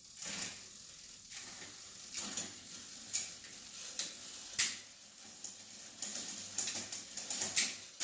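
Trek 820 Antelope's 7-speed shifter and rear derailleur being test-shifted: ratcheting shifter clicks and the chain clicking over the rear cogs, scattered at first and then a quick run of clicks near the end. The owner blames gunk inside the shifter for the poor shifting.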